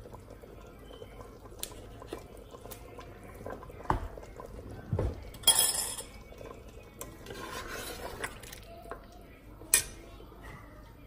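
Metal ladle stirring salt into a curry in a stainless steel pressure cooker pot, with a few sharp clinks and knocks of metal against the pot and some scraping.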